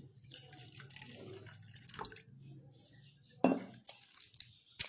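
Lukewarm water being poured and dripping into a container, with small splashes and ticks. There is one sharp knock about three and a half seconds in.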